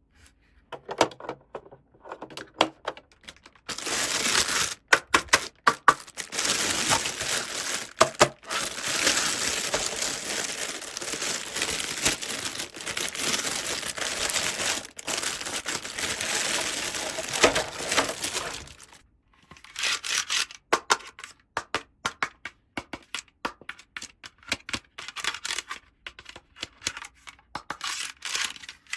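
Packaging being handled: a few small clicks and taps, then a long stretch of steady crinkling and tearing, then more scattered clicks and taps near the end.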